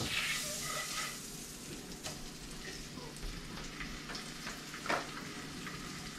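Fish fillet sizzling in butter in a frying pan, a steady frying hiss. A few sharp clicks break it, the loudest about five seconds in.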